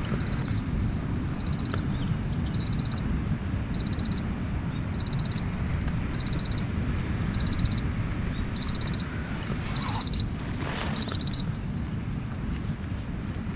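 Electronic alarm beeping: a single high beep about once a second, then near the end two louder clusters of rapid beeps before it stops.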